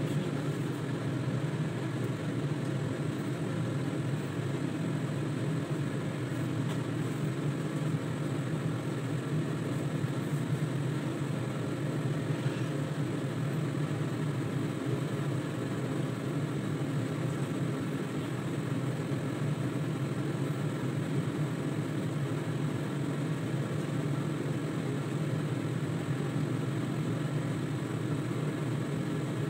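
Steady low mechanical hum that does not change.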